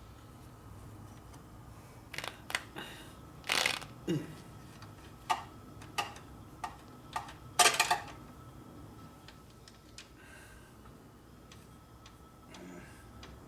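Metal tools and parts clinking and clattering as they are handled on a workbench: a run of about ten sharp knocks and clanks between about two and eight seconds in, then only faint shop room tone.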